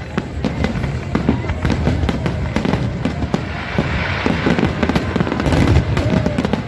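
Fireworks going off: a steady run of crackles and bangs, thickening into a dense crackling hiss from about four seconds in.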